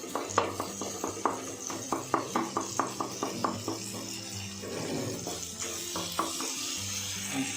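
A spoon stirring in a metal cooking pan, its edge clicking against the pan in a quick run of strokes, about four a second for the first three seconds or so, then a few more about six seconds in. A soft frying sizzle runs underneath.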